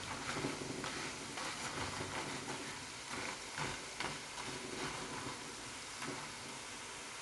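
Telur gabus dough sticks deep-frying in hot oil, a steady sizzle dotted with small crackles, as a spatula stirs and turns them in the pan. The sticks are nearly done and ready to lift out of the oil.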